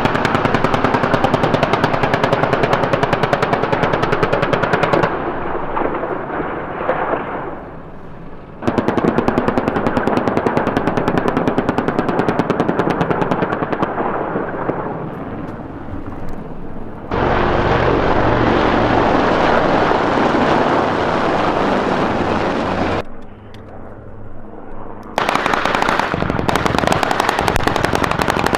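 Long bursts of rapid automatic gunfire, a fast string of sharp cracks, in three stretches of several seconds. In the middle they give way to several seconds of steady rushing noise with a low rumble.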